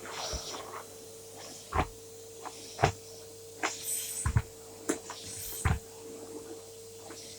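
Scattered clicks and knocks, about nine in all, with brief rustling, as the parts of a Henry Pets vacuum cleaner are handled. A faint steady hum runs underneath; the vacuum's motor is not heard running.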